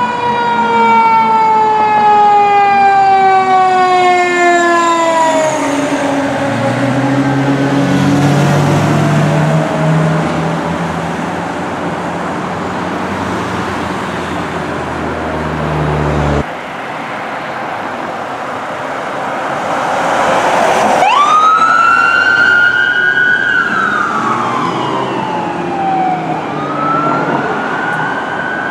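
Fire truck siren falling slowly in pitch over the first several seconds, with a heavy engine running under it. After a sudden cut, an electronic wail siren rises quickly, falls away, and begins to rise again near the end.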